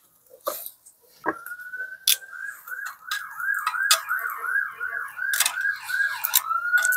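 Emergency vehicle siren: a rising tone comes in about a second in, switches to a fast up-and-down yelp of about three cycles a second, then goes back to a steady wail near the end. Sharp pops and crackles from a wood campfire are heard over it.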